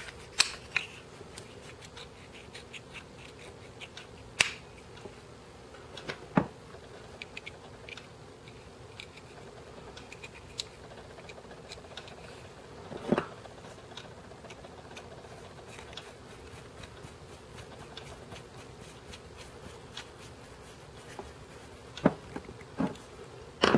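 Small clicks and light scrapes of a screwdriver turning a grip screw and a grip panel being fitted on a small pistol's metal frame. About five sharper clicks stand out, spread through, over faint scattered ticking.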